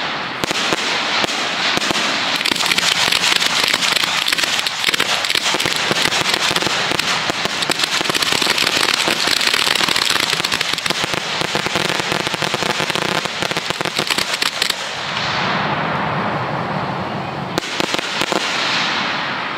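1.3G display fireworks going off in a dense, continuous barrage of rapid crackling reports and bangs. The rapid crackle eases about fifteen seconds in, with one more sharp burst a couple of seconds later.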